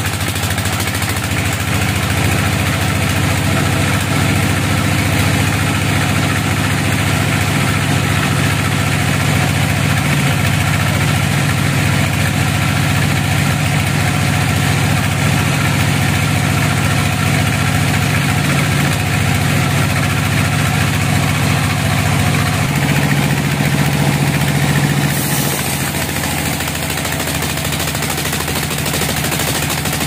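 Band sawmill running and cutting lengthwise through a large log: a steady low machine drone with the blade's hiss through the wood. The drone shifts in pitch about 23 seconds in and eases off slightly a couple of seconds later.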